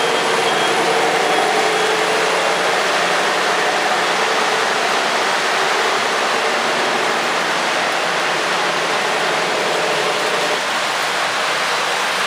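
An O-gauge model train rolling past close by: its metal wheels on the track make a steady rushing rumble as a string of boxcars goes by. Near the start, the Protosound 2.0 diesel engine sound from the passing GP35 locomotive can be heard faintly.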